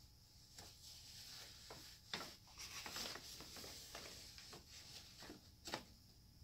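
Faint rustling and scratching on a paper bag as a hand works at it in short strokes, with a few sharper scratches, the strongest about two seconds in.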